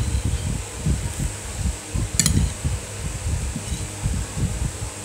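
Close-up eating sounds: chewing and fork-on-plate handling with irregular soft low thuds, and one sharp clink about two seconds in, over a steady fan hum.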